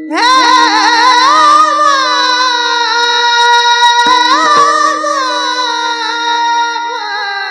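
A kirtan singer's high voice sweeps up into a long, wavering held note with vibrato over a steady drone note; about four seconds in the voice swells again and then slowly falls away.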